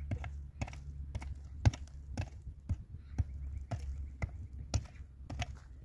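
Repeated sharp blows of a hand tool striking a hollow concrete block, steady at about two a second.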